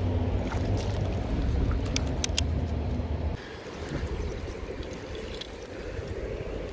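River water running, with a low rumble and a few sharp clicks about two seconds in; it turns quieter a little over three seconds in.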